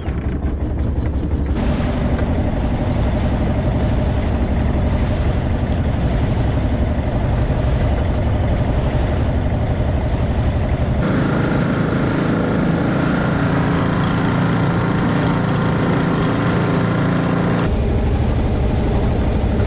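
Fishing boat's engine running steadily under way, with wind and the rush of water past the hull. Between about eleven and eighteen seconds in the sound turns abruptly thinner and brighter, then returns to the deeper rumble.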